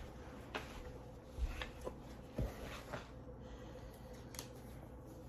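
Faint scattered knocks, taps and clicks of a wrapped gift being handled and opened, about six in all, with a low thump about one and a half seconds in and another near halfway. A faint steady hum runs underneath.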